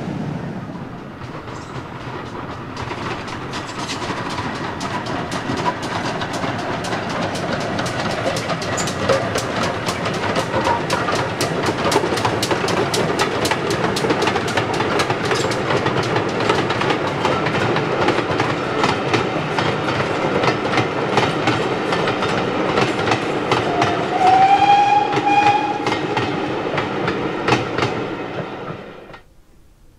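Steam locomotive and its train approaching and passing, building up to a fast, regular beat of exhaust and wheels over rail joints. A brief whistle, rising then held, sounds near the end before the sound cuts off abruptly.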